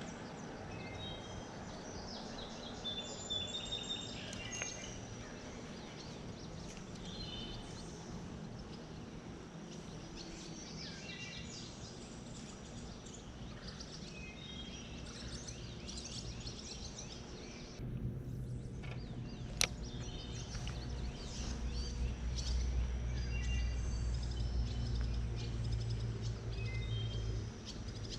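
Birds chirping now and then over a steady outdoor hiss. About two-thirds of the way in, a low rumble sets in and grows louder, with a single sharp click just after it starts.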